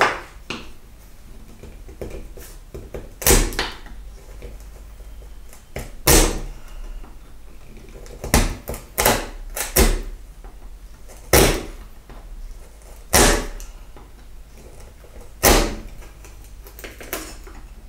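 Bench chisel being worked down into the end of a wooden workpiece to cut a halving joint, giving about ten sharp knocks spaced irregularly, one every one to three seconds, as chips split away.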